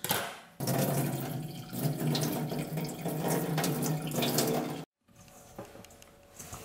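Soaking water from a stainless steel bowl of rehydrated seaweed pouring and splashing into a stainless steel sink, steady for about four seconds and then cutting off suddenly. A few faint handling clicks follow.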